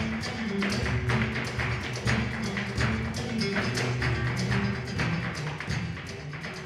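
Flamenco performance: guitar accompaniment with rapid, sharp heel-and-toe strikes of a dancer's zapateado footwork on the wooden stage, several strikes a second, the sound sinking near the end.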